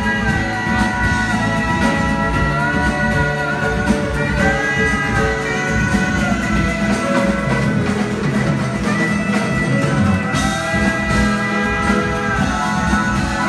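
Live band playing an instrumental passage: drum kit and guitars under long, held melody notes that bend gently in pitch, with a saxophone in the line-up.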